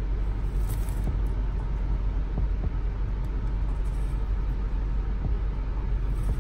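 Steady low rumble inside a car cabin with the engine running.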